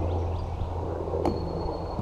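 A single sledgehammer blow on a wedge in a tree's felling cut, about a second in, leaving a ringing metallic ping, over a steady low rumble of wind.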